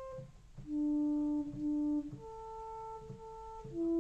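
Behringer Crave analog mono synth on its sawtooth oscillator, patched for a flute-like tone, playing a slow line of single held notes, about a second and a half each. After a short gap the line drops to a low note, steps up, then comes back partway down near the end, with a soft thump as each note starts.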